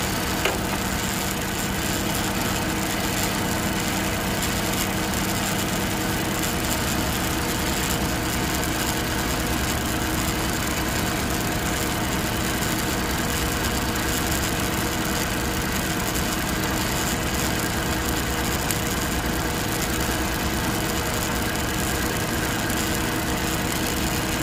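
Suzuki Multicab's fuel-injected three-cylinder engine idling with a misfire while one cylinder's ignition coil is pulled to test it. The idle gets rougher with the coil out, which shows that this cylinder is firing and is not the faulty one. A light click about half a second in.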